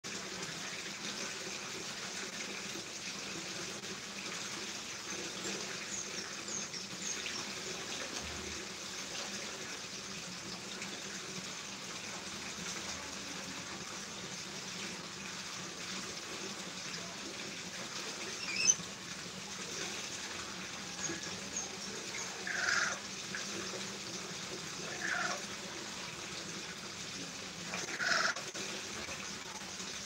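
Lory calling: a few faint high chirps, one sharp loud chirp about two-thirds of the way in, then short downward-sliding squawks every two to three seconds, over a steady hiss.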